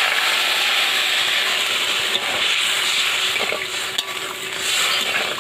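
Water poured into a hot wok of oil-fried yam bulbils and spices sizzles and hisses steadily, while a spatula stirs through the pieces.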